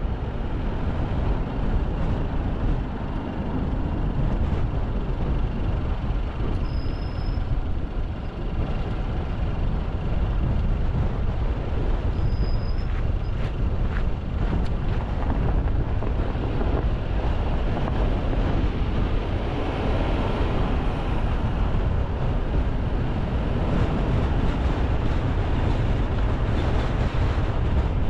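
A car driving along a road: a steady low rumble of engine, tyres and wind.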